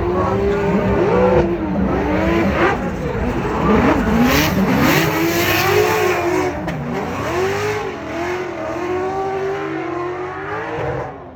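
Drift cars' engines revving up and down hard, with tire squeal.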